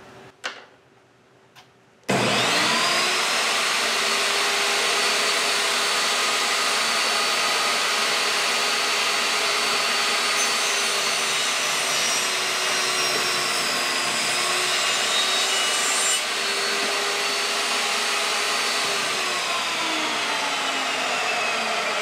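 Chicago Electric benchtop table saw starting up about two seconds in with a rising whine, running steadily while it cuts a slot into the end of a 2x4 wood block, then spinning down near the end.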